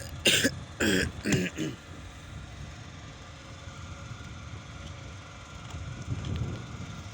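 A person's voice calls out in a few short bursts during the first two seconds, over a steady low rumble.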